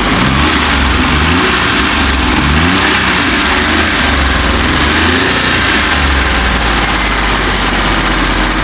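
Small car engine revved in a series of short blips, then settling to a steady idle. It runs through refitted resonators and a stock exhaust in place of a straight pipe, so it sounds smooth and quiet.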